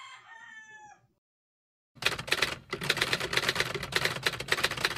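Typewriter typing sound effect: a fast run of key clicks starting about two seconds in, after a fading echo and a second of dead silence.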